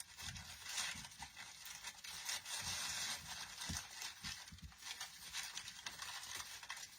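Rustling and crinkling of artificial pine and leaf picks being handled and bent into place on a swag, with scattered light knocks.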